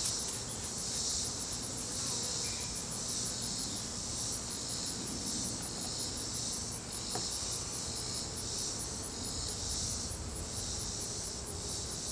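Crickets trilling steadily and high-pitched, in a fast, even pulse that swells and fades slightly, with a low rumble beneath.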